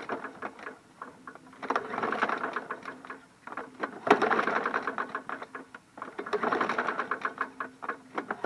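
MTD Yard Machines push mower's engine being cranked by its recoil pull cord again and again without firing: about four pulls of rapid mechanical clatter, each lasting about a second and a half. Something is rattling inside the engine, and it has low compression; the owner takes it for a dead engine.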